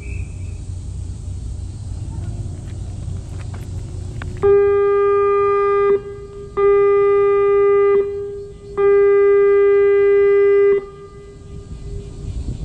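A horn sounds three long blasts at one steady pitch, starting a few seconds in, the third blast the longest.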